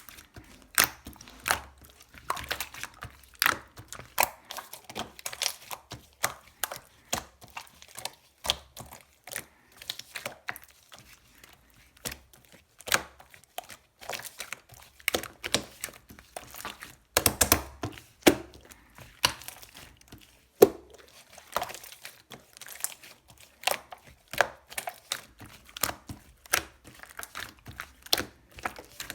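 Shaving-foam slime being played with by hand, giving an irregular run of small pops, clicks and crackles, with a few louder pops past the middle.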